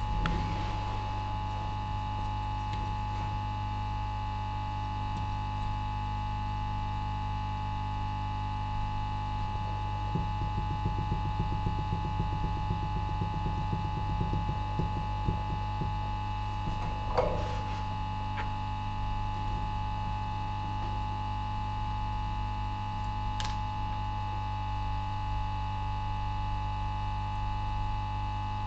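Steady electrical mains hum and buzz with a thin whine over it, with a stretch of faint rapid ticking in the middle, a knock just after it and one sharp click later.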